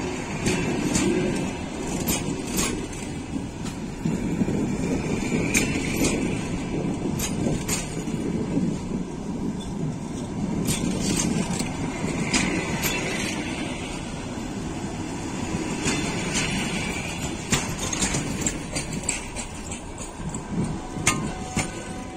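Passenger train carriages rolling past as the train arrives: a steady rumble of wheels on rail, with sharp clacks, often in close pairs, as the wheels cross the rail joints.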